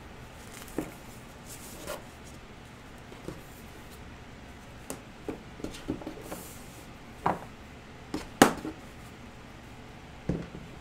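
Handling noises from a tape-wrapped wire doll armature and cloth doll parts being moved about on a tabletop: a scattering of short taps, knocks and rustles. The loudest knock comes about eight seconds in.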